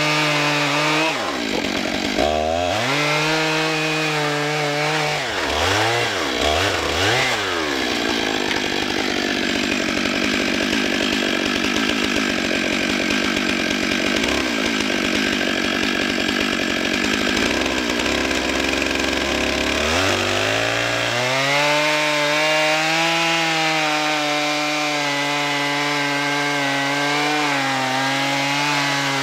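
Long-bar gas chainsaw at full throttle cutting down through a stack of cedar slabs. The engine pitch dips and climbs back a few times in the first seconds. From about 8 s it bogs into a rougher, noisier cut for about twelve seconds, then revs back up to a steady high whine.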